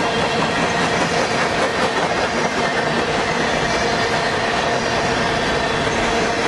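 Freight train of covered hopper cars rolling past close by: a steady rumble of steel wheels on the rails, with a continuous high squeal and ringing from the wheels.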